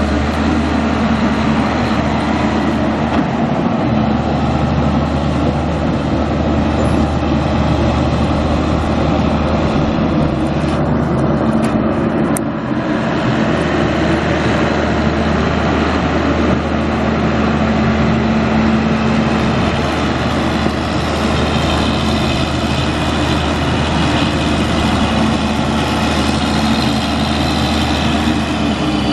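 John Deere 9300 tractor's 12.5 L six-cylinder turbo diesel engine running steadily. A higher-pitched whine joins in after about twenty seconds.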